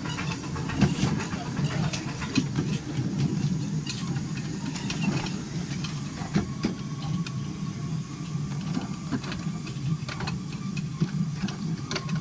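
A 7¼-inch gauge Tinkerbell-class miniature steam locomotive running with its train: a steady low rumble of wheels on track, with frequent sharp clicks and knocks. A faint steady high tone comes in about halfway.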